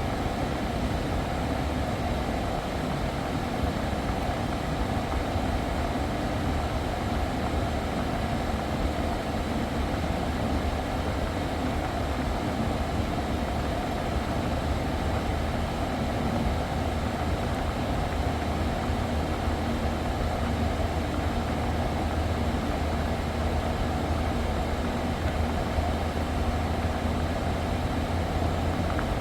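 Kia Carnival's engine idling steadily with the air conditioning running while refrigerant gas is charged into the system.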